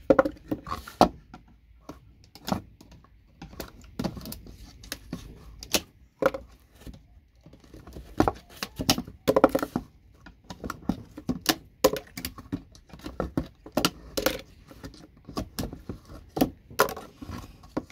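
Irregular sharp clicks, clacks and rattles of small plastic and metal parts as a 12-port network patch panel is pulled apart by hand, its little circuit boards working loose.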